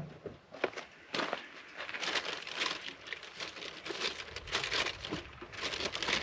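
Irregular rustling and crinkling of gear being handled, with small scattered knocks.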